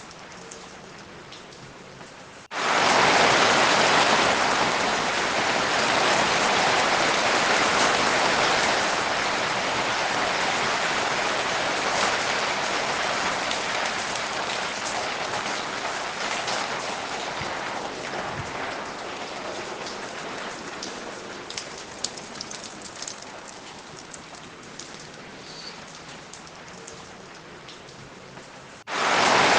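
Steady rain falling. It is light at first, then turns suddenly into a heavy downpour about two and a half seconds in. The downpour eases gradually, with a few distinct drops pattering, and surges heavy again abruptly near the end.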